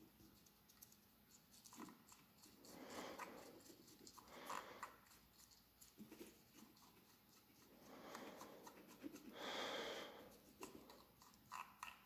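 Near silence, with a few slow, soft breaths and faint clicks and scrapes as the threaded battery end cap of a small plastic flashlight is twisted round and round.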